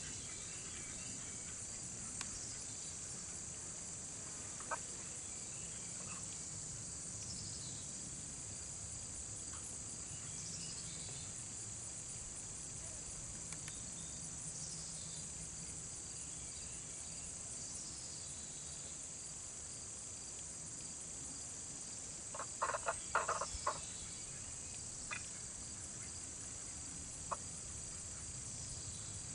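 Ducks giving a short run of several quick quacks about three-quarters of the way in, with a few single soft calls elsewhere, over a steady high chirring of insects.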